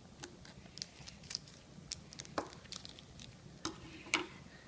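Small plastic toy figures being handled and set down: scattered light clicks and taps, the sharpest three in the second half.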